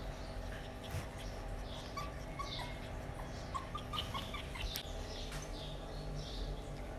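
Small puppy giving faint high squeaks and whimpers, with a quick run of short squeaks in the middle, while it plays and mouths at a hand.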